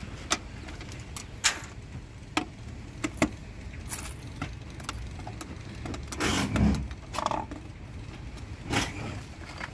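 Plastic clicks and snaps as a screwdriver pries at the casing of a wired wall thermostat, with a louder clatter about six seconds in.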